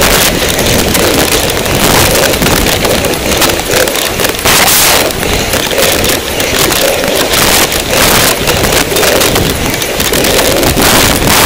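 Loud wind buffeting the microphone of a camera carried down a rough dirt trail, mixed with steady rattling and knocks from the ride.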